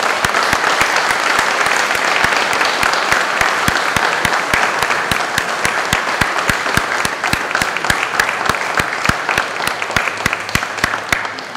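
Audience applauding steadily, with one person's claps loud and sharp close by, dying away near the end.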